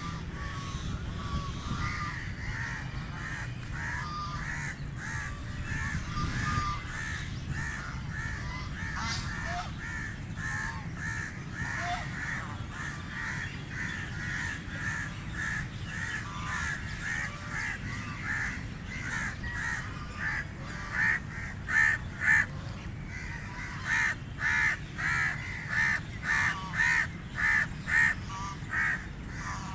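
Ducks quacking in a steady run of harsh calls, about two a second, with a louder burst of quacks near the end, over a low steady rumble.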